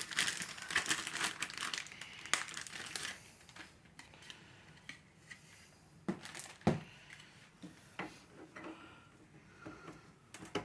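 Plastic packaging crinkling as toy parts are handled and unwrapped, then scattered small clicks and one sharp knock of hard plastic pieces on the table.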